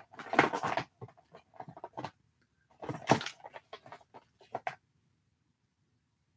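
Small plastic toy pieces clicking and rustling as a hand rummages through a clear plastic storage bin. There are scattered light clicks, with a short louder rustle near the start and another about three seconds in.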